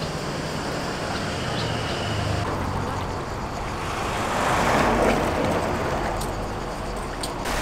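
Motor scooter engine running in a village street. After a cut, steady outdoor traffic noise from a passing vehicle on a coastal road, swelling and fading about five seconds in.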